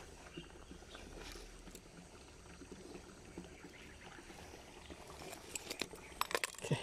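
Faint rushing of a shallow rocky stream, with a few sharp clicks and knocks near the end.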